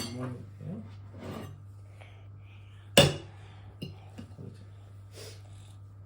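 A toddler sneezes once, sharply, about three seconds in, the loudest sound by far; a few light clicks follow.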